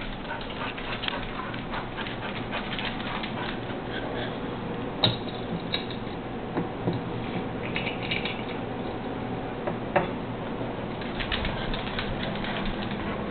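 Dogs' claws pattering and clicking on a hard kitchen floor as they shift about, with a few sharper clicks about five seconds in and again near ten seconds.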